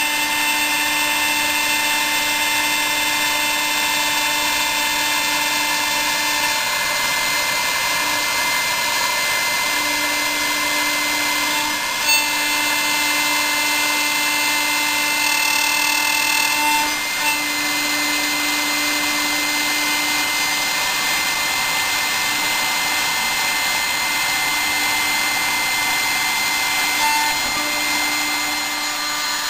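CNC milling machine's spindle driving a small end mill through aluminium: a steady machining noise with several steady whining tones that drop out and come back as the cut moves. A short click about twelve seconds in.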